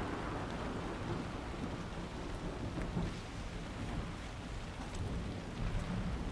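Steady rain falling with a low rumble of thunder underneath.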